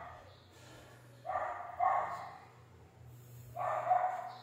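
A dog barking, one run of barks about a second and a half in and another near the end.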